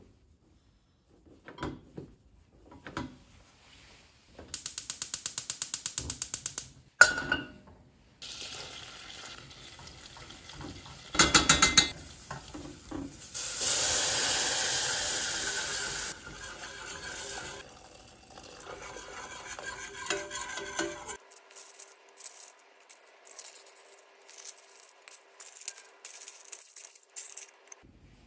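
Gas hob's electric spark igniter ticking rapidly for about two seconds, ending in a sharp click, and a second short burst of igniter ticks a few seconds later. Water then pours into a stainless steel pot, followed by light clinks of a whisk against the pot.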